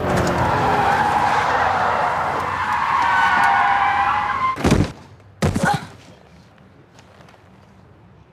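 BMW M5's tyres squealing as the car slides in a long skid, then two sharp, heavy thuds about a second apart near the middle.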